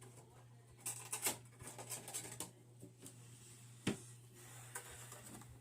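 Pokemon trading cards being handled and flipped through: light rustles, taps and card flicks, with one sharp click about four seconds in, over a steady low hum.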